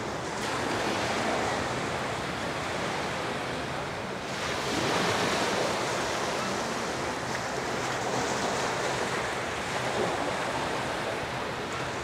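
Small Gulf waves washing onto the sand in a steady hiss of surf, with a louder wash starting about four seconds in.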